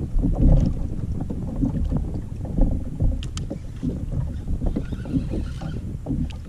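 Wind buffeting the microphone and water lapping against a plastic fishing kayak's hull: an uneven low rumble, with a few light clicks about three seconds in.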